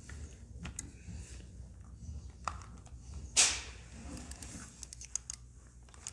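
Small screwdriver and PS4 controller's plastic shell handled while a tiny screw is driven back in: scattered faint clicks and taps, with one louder short scuff about three and a half seconds in, over a low steady hum.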